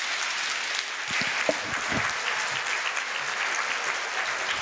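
Audience applauding steadily, a dense patter of many hands clapping, with a few low thumps between one and two seconds in.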